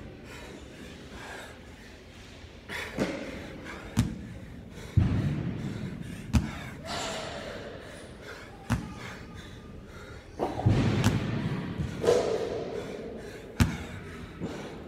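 Hex dumbbell knocking on the rubber gym floor as it is set down at the bottom of repeated one-arm snatches: about six sharp knocks, one every one to two seconds.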